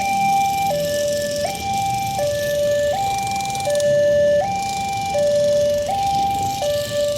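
Railway level-crossing warning alarm sounding continuously: an electronic two-tone signal that alternates between a lower and a higher note about every three quarters of a second. This is the warning that a train is approaching and the crossing is closed.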